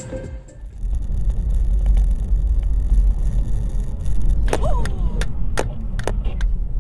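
Steady low rumble of a car driving on a snow-covered road, picked up by a dashcam inside the car. About four and a half to six and a half seconds in, several sharp clicks and knocks sound, one with a short falling squeak.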